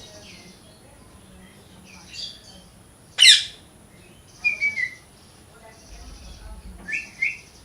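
Parrot calls: one loud, harsh squawk about three seconds in, then shorter whistled notes, one falling, and a quick pair near the end, over faint high chirping.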